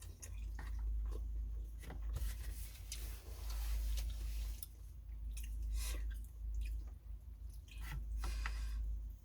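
A person eating phở: chewing noodles and meat with wet mouth smacks and occasional slurps, over a steady low hum.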